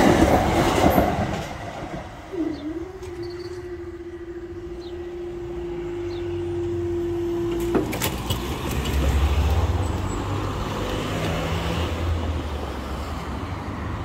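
The tail of a Class 387 electric multiple unit rushing past over the crossing, fading away within the first two seconds. Then a steady hum from the level crossing barrier mechanism sets in, dipping briefly in pitch as it starts, and runs for about five seconds before it cuts off with a click as the barriers finish raising. A low rumble follows.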